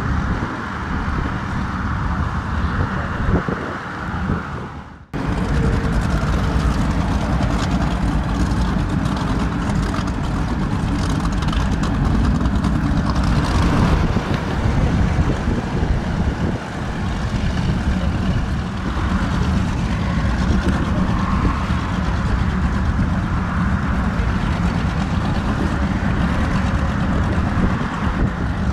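Offshore powerboat engines rumbling at idle speed, a deep, steady exhaust rumble, starting with a Cigarette 38 Top Gun crawling through the marina. The sound cuts off abruptly about five seconds in and picks up again at once with the same heavy engine rumble.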